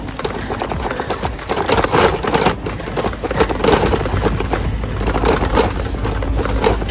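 Tyres crunching and scraping over a rough dirt and gravel slope during an uphill climb, with a low rumble underneath and many short crackles throughout.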